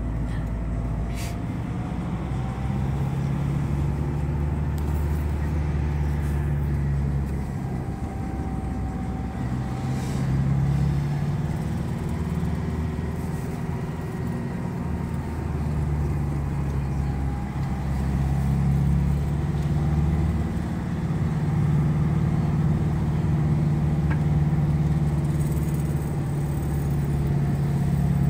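Vehicle engine and road noise heard from inside the cabin while driving, a steady low drone that rises and falls with engine speed and gets louder in the second half.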